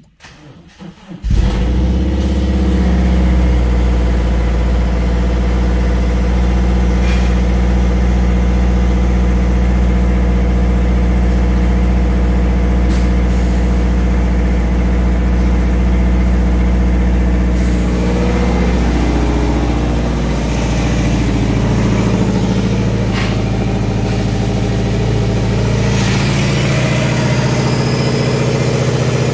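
A 2011 Subaru Outback's 2.5-litre flat-four engine is started: a brief crank, and it catches about a second in. It then runs steadily at a fast idle, and its note changes about two-thirds of the way through.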